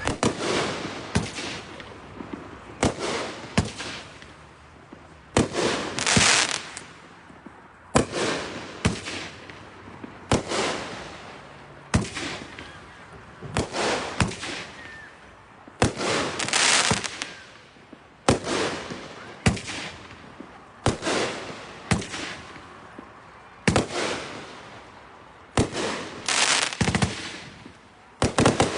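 A 16-shot 500-gram consumer firework cake firing its shots one after another, sharp reports every second or two, some trailing a longer, denser burst.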